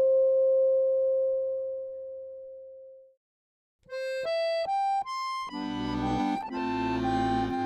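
A clear, steady held tone fades away. After a short silence, an accordion plays four rising single notes and then full chords with bass.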